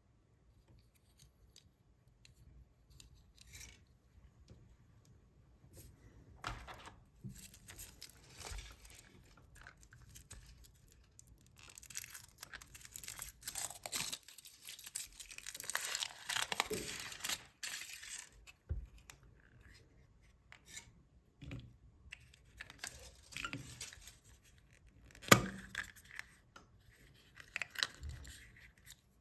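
Foil wrappers of chocolate surprise eggs being torn open and crinkled in irregular crackly stretches, busiest in the middle. A single sharp snap about 25 seconds in is the loudest sound.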